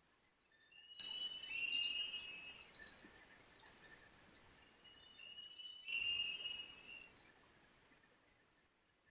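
Birds calling in two bursts of high whistled notes, one about a second in lasting a couple of seconds and another about six seconds in, over a faint steady high insect drone.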